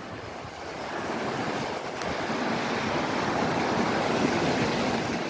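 Sea surf washing in over shallow beach sand: a steady rush of breaking waves that swells about a second in.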